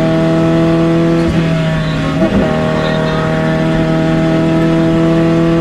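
Škoda 110R rally car's engine heard from inside the cabin, running hard at high, steady revs on a straight. Its note is briefly interrupted about a second and a half in, then settles back to the same steady pitch.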